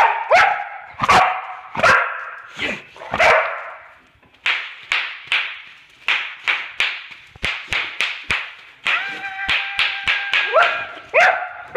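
Boxer dog barking over and over, roughly a bark every two-thirds of a second at first. The middle holds a run of quick, sharp clicks among shorter yaps, and a little past three-quarters of the way through there is a long, steady, high whine before the barking resumes.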